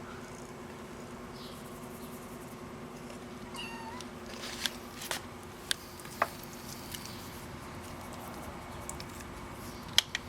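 A kitten gives one short, high, rising mew about three and a half seconds in. Several sharp clicks follow over the next seconds, the loudest near the end, over a steady low hum.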